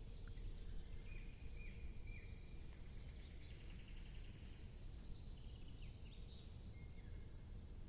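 Faint birds calling: scattered short chirps and a brief buzzy trill, over a steady low rumble of outdoor background noise.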